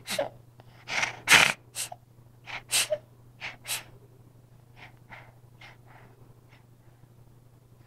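A run of short breathy puffs and sniffs close to the microphone, quick and fairly loud in the first few seconds, then fainter and more spaced out.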